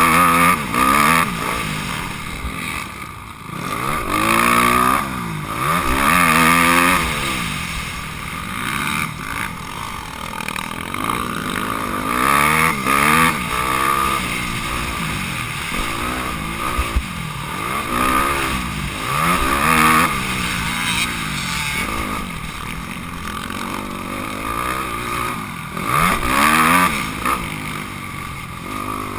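Honda CRF250R's single-cylinder four-stroke engine being raced: revving up and dropping off again and again, the pitch rising as the throttle is opened and falling back off the throttle.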